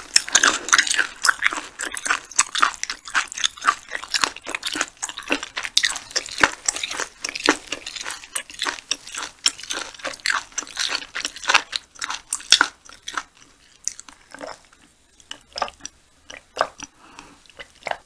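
Close-miked mouth sounds of a person chewing sea hare meat: a rapid run of wet, sticky chewing clicks that thins out to occasional chews over the last few seconds.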